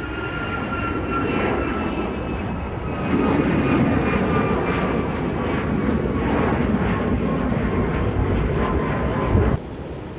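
Jet airliner passing close by: a high engine whine slowly falling in pitch over a loud rumble that builds about three seconds in, then cuts off abruptly near the end.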